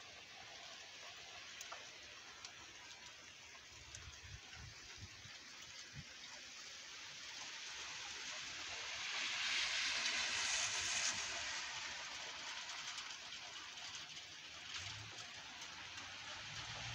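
Hail falling in a steady hiss of pellets with scattered faint ticks. It grows heavier for a couple of seconds around the middle, then eases.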